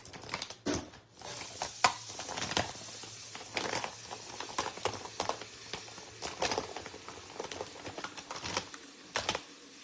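Irregular small clicks, taps and rustles of objects being handled: makeup items and other small things rummaged out of a handbag and set down on a table.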